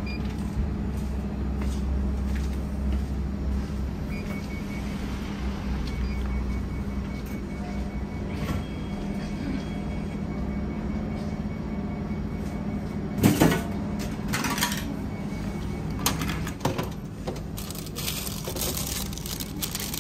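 A vending machine hums steadily, then about two-thirds of the way through a bought item drops into the pickup bin with a single loud thump. Clicks follow as the pickup flap is handled, and a clear plastic snack bag crinkles near the end.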